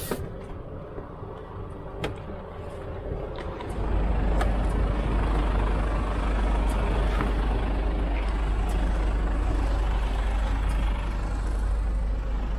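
Mercedes Actros truck's diesel engine idling, heard from outside the cab. About four seconds in it becomes louder, with a steady deep rumble. A few light clicks and knocks come before that.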